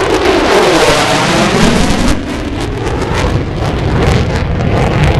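Jet engine running at full power: a loud, rough noise over a deep rumble, with a tone sweeping down in pitch in the first second as it passes.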